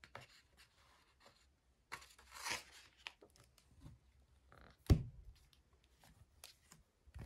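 Hardcover picture book being handled: paper rustles as a page slides about two seconds in, then one sharp thump just before five seconds as the hard covers close. Faint handling taps and clicks run in between.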